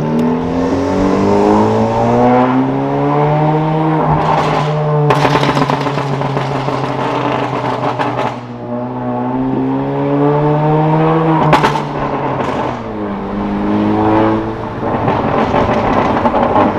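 Very loud 2017 Honda Civic Si 1.5-litre turbocharged four-cylinder with catless downpipe and muffler delete, accelerating hard through the gears, heard from inside the cabin. The engine note rises in pitch several times, with crackling backfire pops at the shifts about four and about eleven seconds in.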